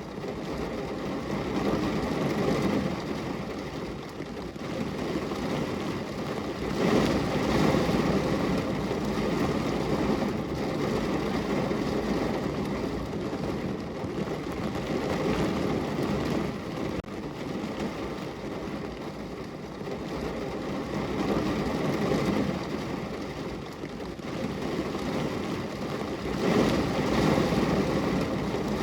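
Rain falling on a car window: a steady rush of noise that swells louder for a few seconds about a quarter of the way in and again near the end.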